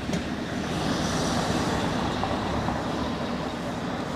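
Lorry engine running steadily as it pulls an empty trailer slowly round a tight corner, getting a little louder about a second in.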